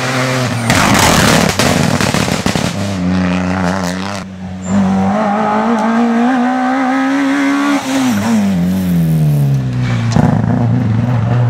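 Peugeot 205 Rallye rally car driven hard through a bend on a stage, its engine held at high revs with the pitch climbing slowly, then dropping away about eight seconds in as the driver lifts before it picks up again. There is a loud, rough rush of tyre and road noise in the first few seconds.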